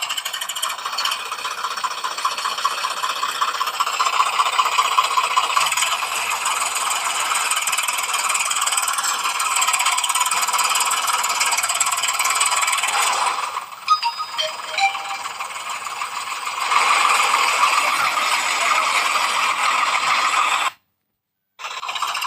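A small battery-powered toy's motor and plastic gears running with a steady whirring rattle. There is a brief dip with a few clicks about two-thirds of the way through, and a short cut to silence near the end.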